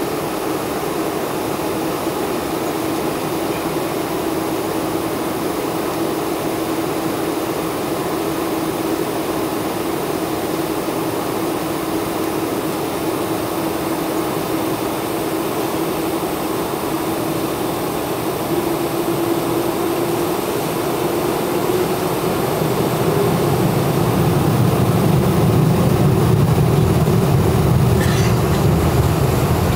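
Boeing 747 jet engines heard from inside the cabin, a steady whine with a broad rushing noise. About two-thirds of the way through, the whine rises and a deep rumble builds as thrust increases and the aircraft starts to roll.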